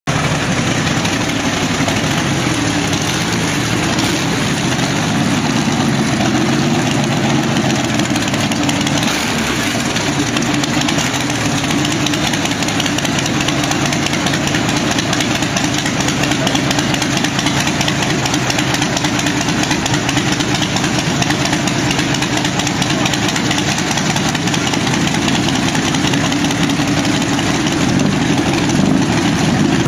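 Packard 4M-2500 42-litre V12, an ex-WWII PT-boat engine in the Packard-Bentley 'Mavis' racing car, running steadily at low revs through open exhaust stubs. It is loud.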